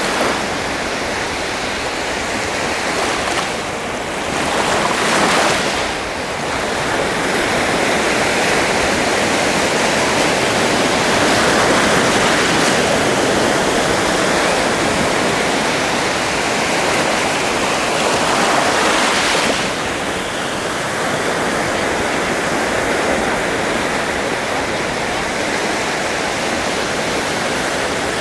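Sea waves washing onto the shore, a continuous rush of surf that swells with each breaking wave, a few seconds apart.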